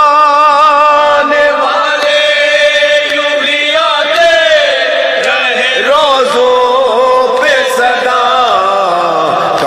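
Male voices chanting a noha, a Shia mourning lament: long held notes that waver and glide, with no words that can be made out.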